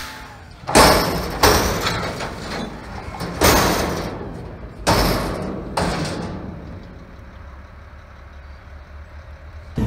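McNeilus front-loader garbage truck tipping a bin over its cab into the hopper: five loud bangs in the first six seconds as the bin knocks on its lift arms and the load drops in, each one ringing briefly. After that comes the low, steady run of the truck's engine and hydraulics.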